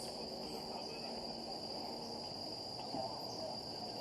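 Insects calling in a steady, unbroken high-pitched drone, over a low background murmur.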